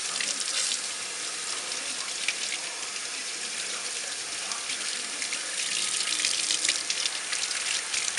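Water running from a sink faucet, splashing over a wet puppy's fur and into the sink basin: a steady hiss with many small splashes.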